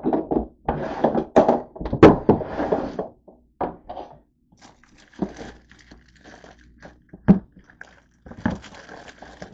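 Thunks and knocks of things being moved about in a kitchen cabinet, the loudest in the first three seconds, with one sharp knock about seven seconds in. Plastic snack wrappers rustle near the end as a hand rummages through them.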